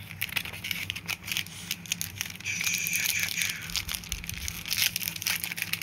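Foil Yu-Gi-Oh booster pack wrapper crinkling and being torn open: a dense run of crackles, with a longer tearing stretch about two and a half seconds in.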